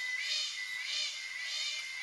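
Cicadas calling: a steady high whine, over which short whistling calls that rise and fall in pitch repeat about every half second.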